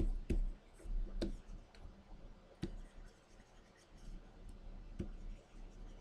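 Pen stylus tapping and stroking on a Wacom Cintiq pen display's screen: irregular light clicks and taps, the sharper ones in the first three seconds, over a faint low hum.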